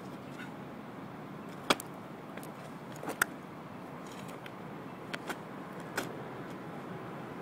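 Footsteps and stamps on asphalt during a martial arts form: about half a dozen short, sharp taps and scuffs, the loudest about two seconds in, over a steady outdoor background hiss.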